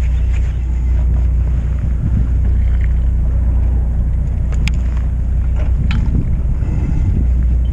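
Steady low rumble of a fishing boat at sea, with wind buffeting the microphone. A couple of light clicks come in the second half.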